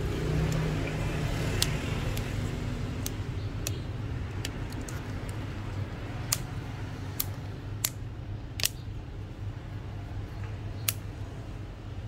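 Light, sharp clicks and taps of small smartphone parts being handled and fitted as the phone's frame is installed, about ten scattered at irregular intervals, over a steady low hum.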